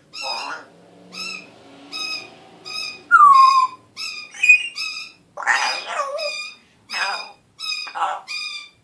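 Young Congo African grey parrot vocalizing: a steady run of short, identical chirps a little more than once a second, with a loud falling whistle about three seconds in and a few scratchy calls.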